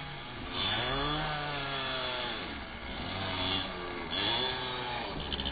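1/8-scale RC buggies racing on a dirt track, their motors whining up and down in pitch as they accelerate, jump and slow for corners.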